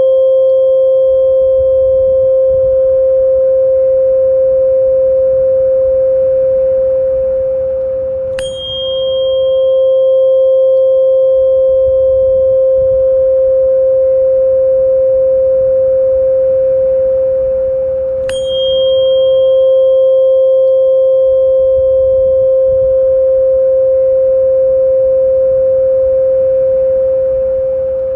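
Sound-therapy track for tinnitus relief: a steady pure tone held without a break, with a soft struck chime about every ten seconds, twice here, each a brief click and a short ringing note above the tone. A faint low rumble swells and fades underneath.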